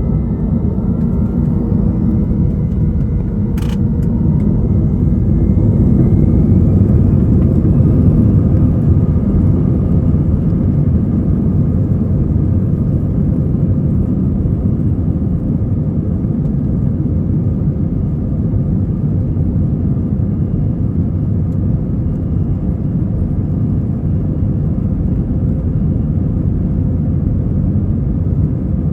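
Airbus A321 jet engines and airflow heard from inside the cabin on takeoff: a loud, steady rumble that swells a little around six to eight seconds in, with a faint rising whine near the start. A single sharp click comes about three and a half seconds in.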